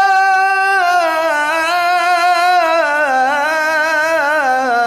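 A man reciting the Quran in a raised, high voice, drawing out the word "Rabbana": one long steady note for about a second, then a wavering, ornamented melisma that steps downward.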